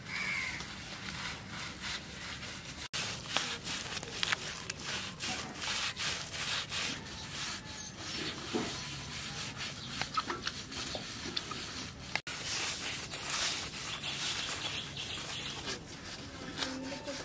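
Handfuls of fresh green leaves rubbed and scrubbed back and forth over the skin of a large river fish: a continuous rustling scrape made of many quick strokes.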